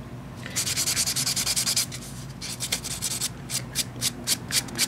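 A pink nail buffer block rubbed back and forth over a cured gel nail, giving a light buff to smooth the surface before the top coat. The scratchy rubbing runs on for about a second, then breaks into short quick strokes, about five a second.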